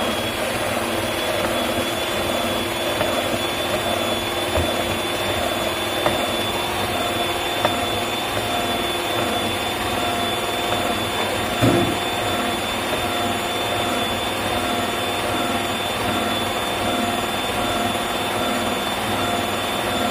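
Krups stand mixer running steadily, its twin beaters whipping egg whites with cream of tartar: an even motor whine with a thin high tone on top. One brief knock about halfway through.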